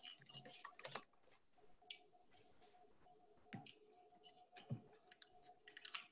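Faint, irregular clicks and taps of computer-keyboard typing picked up by an open microphone on a video call, over a faint steady hum.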